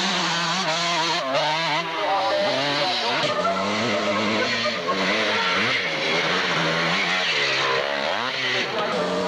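Motocross motorcycle engine revving up and down over and over as the bike climbs a dirt track, its pitch rising and falling, with a couple of quick rev blips late on.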